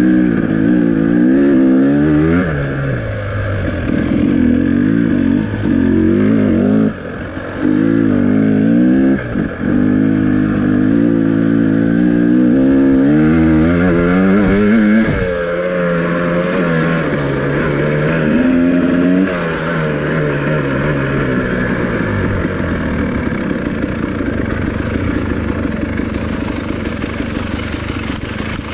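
2018 KTM 300XC two-stroke dirt bike engine running under hard riding, its pitch climbing and dropping again and again as the throttle is opened and the gears change. The engine briefly cuts back twice, about seven and nine seconds in, and runs lower and steadier in the last several seconds.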